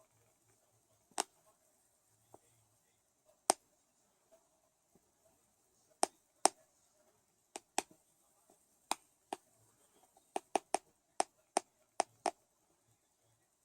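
Teeth clicking and grating against each other in bruxism: about fifteen sharp, irregular clicks, sparse at first and coming faster and closer together in the second half.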